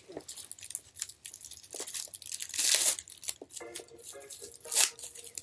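Clear plastic wrapping being pulled and torn off an air fryer, crinkling in irregular rustles, loudest about two and a half seconds in and again near the end.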